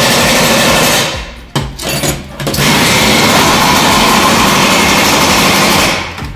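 Power tool running in two long spells, stopping about a second in and running again from about two and a half seconds to near the end, undoing bolts in a car's CVT transmission casing during teardown.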